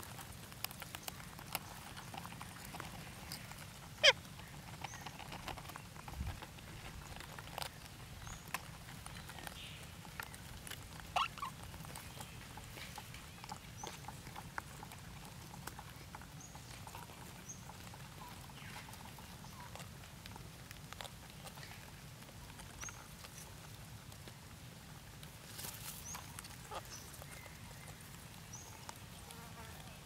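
Green parakeets moving about a nest in a hollow tree stump: light scattered clicks and taps, with a sharper click about four seconds in and another near eleven seconds, and a few short high chirps, over a low steady hum.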